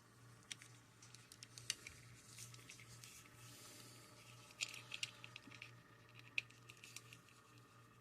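Faint, scattered clicks and taps of a plastic Clamp Champ action figure being handled and its joints moved, over a low steady hum.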